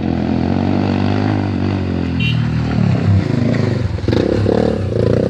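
Motorcycle engine running and revving, its pitch rising and falling, over the steady low drone of idling vehicle engines.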